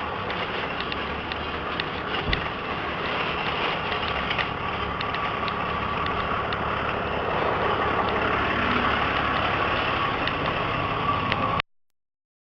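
A vehicle engine running steadily, with a faint steady whine and a few small ticks, growing slightly louder; it cuts off abruptly near the end.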